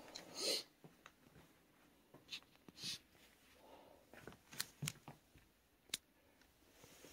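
Faint handling noises: a brief swish about half a second in, two softer swishes a little later, then a few small sharp clicks.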